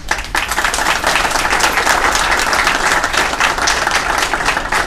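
Audience applauding, many pairs of hands clapping together in a dense, steady patter.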